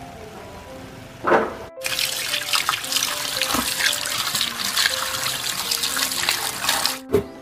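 A stream of running water pouring and splashing over hands scrubbing a potato above carrots in a woven bamboo basket, starting about two seconds in and stopping near the end. Soft background music plays throughout.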